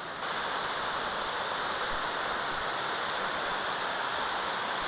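A shallow, rocky river rushing over rapids: a steady, even noise of running water that sets in abruptly just after the start.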